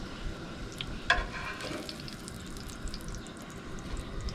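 Salmon patties frying in hot oil in a cast-iron pan: a steady sizzle with scattered crackles and pops. About a second in comes a single sharp metallic clink that rings briefly.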